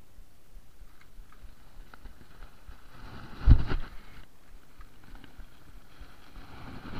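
Two short rumbling bursts of wind or handling noise on the microphone, about three and a half seconds apart, over a low steady outdoor hiss.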